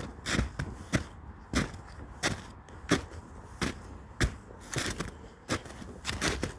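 Footsteps in snow, a steady walking pace of about one step every two-thirds of a second.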